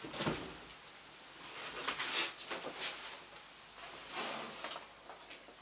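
A few short, soft rustling and knocking noises of things being handled, in a small room.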